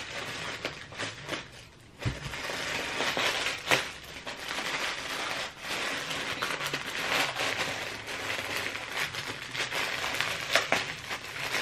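Orange plastic mailer bag crinkling and rustling as it is handled and opened by hand, with a few sharp crackles of the plastic.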